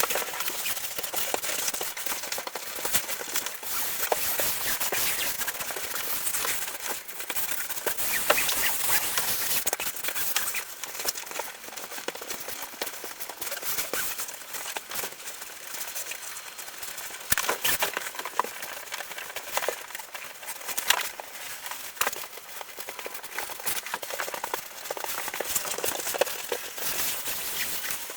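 Scraping and rustling hand-work noise with scattered sharp clicks and knocks.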